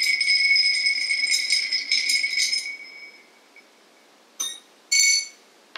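Drinks with ice being stirred in glasses: rapid clinking of ice and stirrer against the glass, with the glass ringing, stopping about three seconds in. Two single clinks of glass follow near the end.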